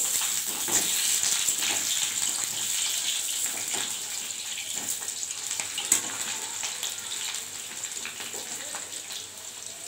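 Potato chunks sizzling and crackling in hot oil in a kadai, the sizzle slowly dying down. One sharp tap about six seconds in.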